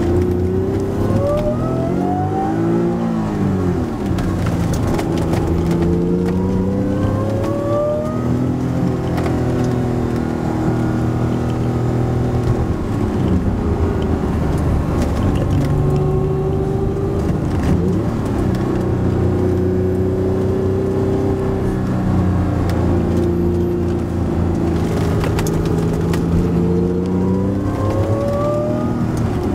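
Supercharged Acura NSX V6 engine heard from inside the cabin as the car is driven hard, the engine note climbing in pitch under acceleration and dropping back between pulls several times.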